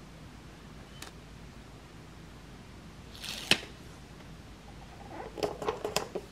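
Handling of plastic pump bottles and a paper sticker label: a short brushing noise ending in a sharp tap about halfway through, then a quick run of small clicks and crackles near the end as the label is pressed onto a black plastic bottle.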